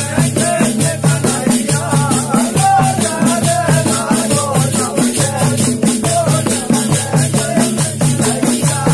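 Indian folk phag song performed live: men singing over a two-headed barrel drum (dholak) beaten in a steady rhythm, with hand claps and a continuous high rattling jingle.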